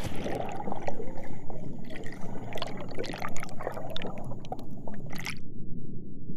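Underwater bubbling sound effect: a dense rush of popping bubbles over a low, muffled underwater rumble. The bubbling cuts off suddenly about five seconds in, leaving only the rumble.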